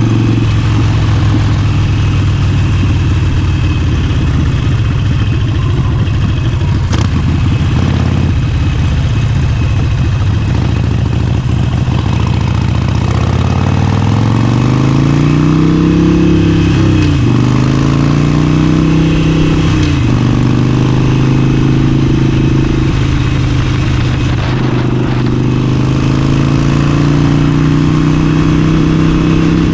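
Harley-Davidson Forty-Eight's air-cooled 1200 cc V-twin running under way, holding steady, then pulling up in revs about halfway through. The revs dip and recover twice before settling to a steady, slightly higher note, with wind and road rush throughout.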